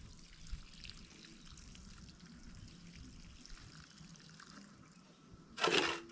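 Hands stirring soaked soya beans in water in a stainless steel basin, soft trickling and sloshing, with a short, louder burst of noise near the end.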